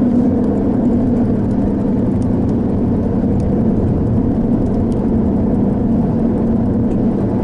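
A vehicle engine running steadily, with a constant low drone.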